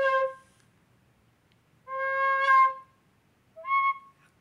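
Plastic soprano recorder playing separate notes: a low note held to about half a second in, the same low note again about two seconds in that flares brighter near its end, then a short note about an octave higher near the end.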